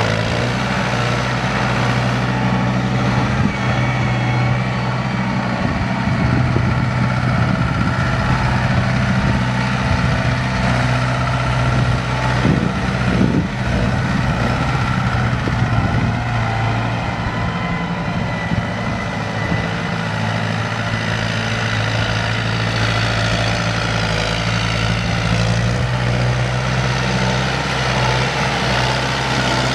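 Kubota M105S tractor's four-cylinder turbo diesel engine idling steadily.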